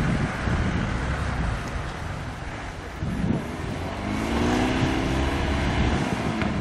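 GAZ-66 army truck's engine running as the truck drives slowly through deep snow, with the revs rising and then falling back about four seconds in.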